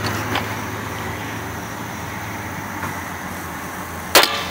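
One shot from a 6mm FN SCAR-L replica BB gun, a spring-cocked single-shot airsoft rifle, about four seconds in: a single sharp crack with a short ringing tail. Before it there is only a steady low background hum.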